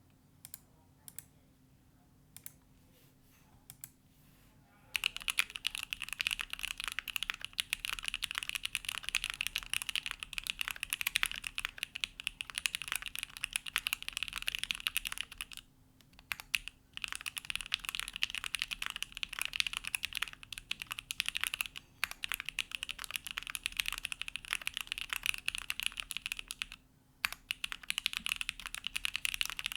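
Neo65 custom mechanical keyboard, with a carbon-fibre plate, plate and case foam, hand-lubed Gateron Box Pink switches and GMK keycaps, being typed on. A few single keystrokes come first, then fast continuous typing from about five seconds in, stopping briefly twice.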